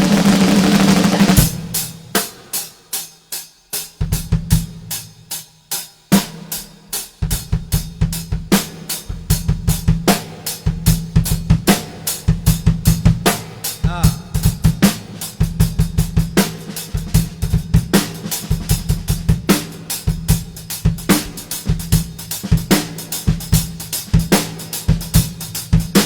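Drum kit played solo: a sustained ringing sound cuts off about a second and a half in, followed by scattered strikes, then from about seven seconds in a fast, dense run of bass drum, snare and rimshot hits.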